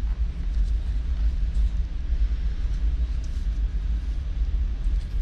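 A steady low rumble with an uneven, fluctuating level, with a few faint light clicks over it.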